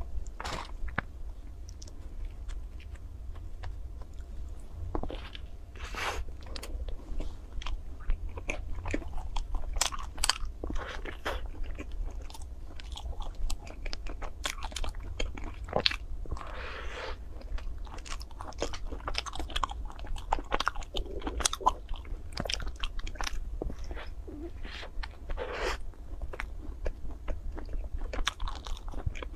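Close-up biting and chewing of a chocolate-coated ice cream bar: many short, sharp cracks of the crisp chocolate shell breaking, with wetter chewing between them, over a steady low hum.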